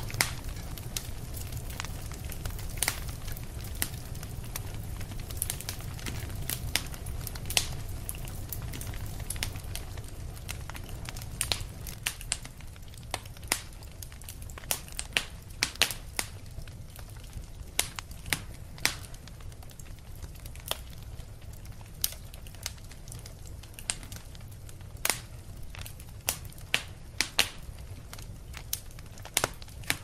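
Wood fire crackling in a fireplace: irregular sharp pops and snaps over a low steady rumble of the flames, the pops coming more often in the second half.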